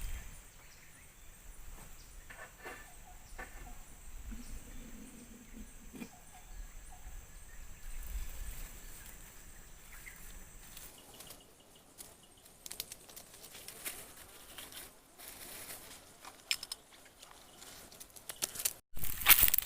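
Quiet outdoor forest ambience: a thin steady high tone for about the first half, a brief low call about five seconds in, then scattered clicks and crackles that grow denser, with a loud crackling burst right at the end.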